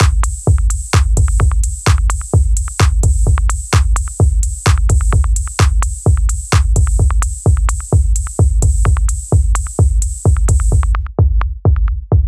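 Electronic background music with a steady drum-machine beat, a heavy bass kick about twice a second; a hissing high layer drops out near the end, leaving the beat.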